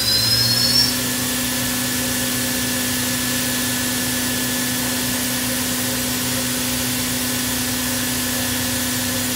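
Spindle of a 2008 OKK HM1250S horizontal machining center spinning up in the first second, then running at a steady speed with an even machine hum and whine.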